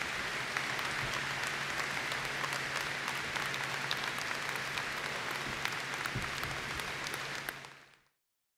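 Audience applauding, a dense steady clatter of many hands that fades out near the end.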